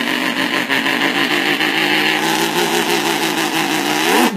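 A man's voice imitating a big V8 engine, made into a can: a steady engine-like drone with a wavering pitch that rises sharply in a rev near the end.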